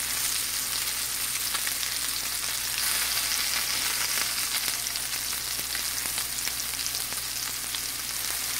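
Lamb meatballs sizzling as they fry in olive oil in a hot pan: a steady hiss with small scattered crackles.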